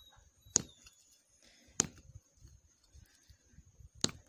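A stone pounding a macadamia nut against a concrete slab: three sharp knocks, the first two over a second apart and the last near the end. The hard shell does not crack.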